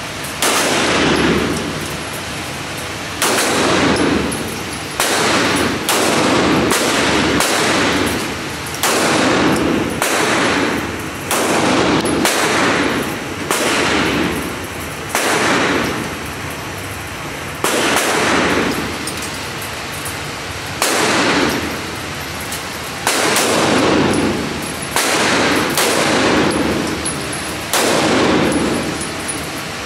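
9mm gunshots fired one at a time at an uneven, unhurried pace, about two dozen over the stretch and often a second or so apart, with a few longer pauses. Each shot is followed by a long ringing echo.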